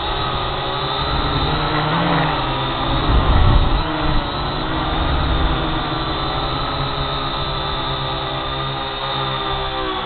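Quadcopter drone's rotors whining in flight, a stack of motor tones wavering up and down as the drone changes speed. About three seconds in, a low rumbling surge, like a gust buffeting the microphone, briefly becomes the loudest sound.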